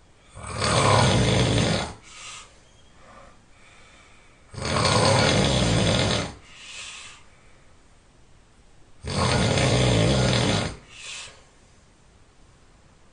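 A person snoring extremely loud: three long, rough snores about four and a half seconds apart, each followed by a short, fainter sound.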